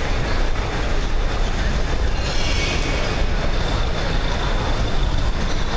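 Steady low rumble of a passing vehicle, with a brief higher rushing sound a little over two seconds in.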